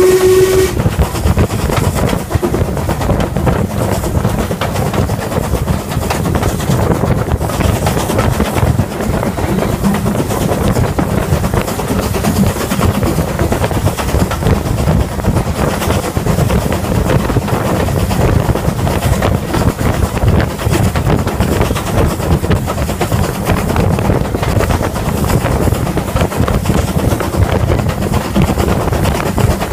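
LMS Ivatt Class 4MT 2-6-0 steam locomotive hauling its train, heard from the leading carriage: a steady, loud running noise of locomotive and wheels on rail, with wind on the microphone. A brief pitched tone sounds at the very start.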